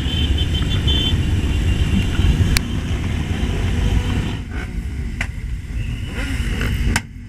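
Motorcycles running in a large group, heard from a moving motorcycle as a heavy low rumble with a few sharp clicks. The rumble drops away suddenly near the end.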